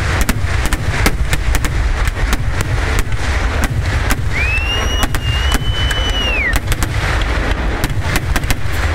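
Festival fireworks going off in rapid, continuous volleys: many sharp bangs close together over a deep steady rumble. A single high whistle, about two seconds long, rises, holds and falls near the middle.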